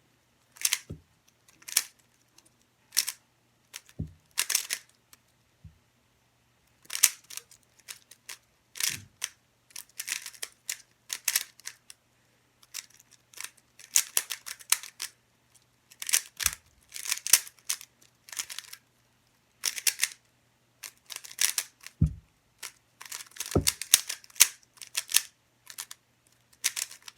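Rubik's cube being twisted: quick runs of sharp plastic clicks as the layers are turned, in clusters broken by short pauses, with a few duller knocks from handling the cube.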